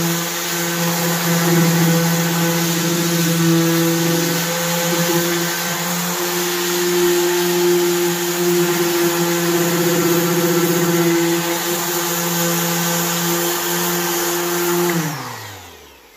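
Milwaukee random orbital sander running steadily with an 80-grit disc against a wooden stool top, stripping off the old worn clear coat. Near the end it is switched off and the motor winds down, falling in pitch.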